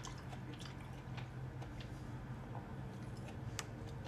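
Faint, soft chewing of gnocchi, with a few light clicks, over a steady low hum.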